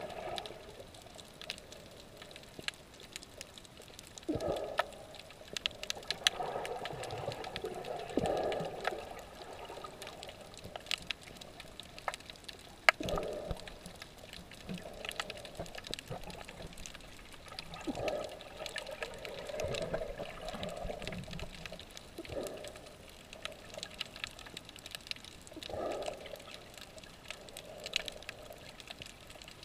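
Underwater sound from a snorkeler's camera: muffled water swishing and swirling past it, swelling up every few seconds, with many scattered sharp clicks throughout. One click about thirteen seconds in is the loudest.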